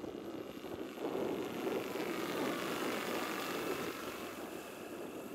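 Large electric scale model Hughes 500 helicopter (2.65 m rotor) flying past: a whooshing from the rotor blades with a thin whine from the electric drive. It grows louder about a second in and eases off near the end.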